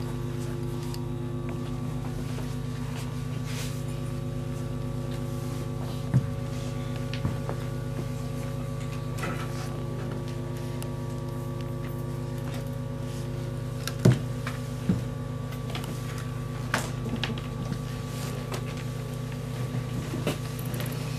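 Steady electronic drone of several held tones layered together, with a few sharp knocks, the loudest about six and fourteen seconds in.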